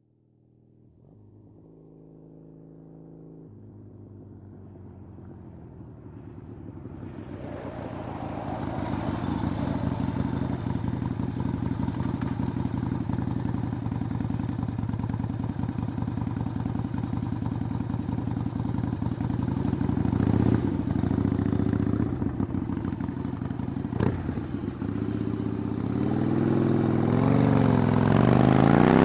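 Harley-Davidson V-twin motorcycle approaching from far off, growing louder as it rides in and slides to a stop, then idling with a steady pulsing beat. Two sharp clunks come partway through the idle, and near the end the engine revs up and down as it gets ready to pull away.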